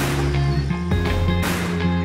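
Background music: held notes over a bass line, with a sharp hit about every second and a half.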